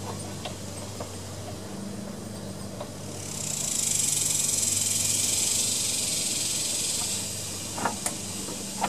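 A spray hissing steadily for about four seconds, starting a few seconds in, as fuel is shot directly into the intake of a Tecumseh lawn mower engine to prime a carburetor that seems dry. A low steady hum sits underneath.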